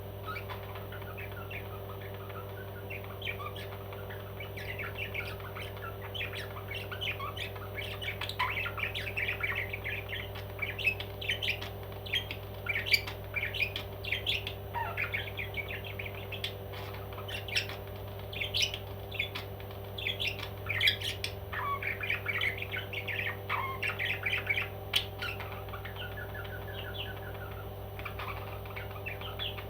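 Parrot squawking and chirping in many short, irregular calls, growing busier a few seconds in, over a steady low hum.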